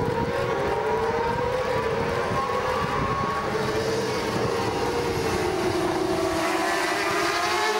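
A pack of 600 cc supersport racing motorcycles at high revs, many engine notes layered together. Their pitch sinks slowly through the middle and climbs again near the end.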